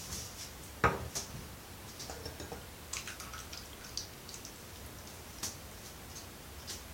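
Razor blade scraping over lathered stubble in short, crisp strokes, with one sharp knock about a second in.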